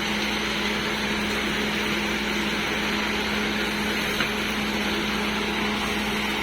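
Construction machine engine running steadily with an unchanging hum, and a small click about four seconds in.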